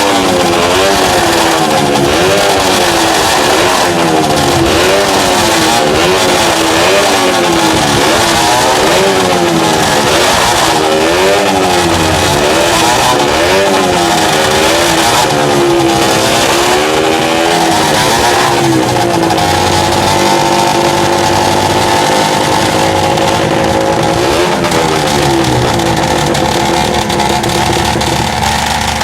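Two-stroke motorcycle engines being revved hard, the pitch rising and falling every second or two. In the last third they settle into steadier, more even running.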